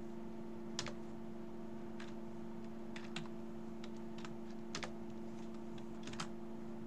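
Computer keyboard being typed on in sparse, irregular keystrokes, over a steady low electrical hum.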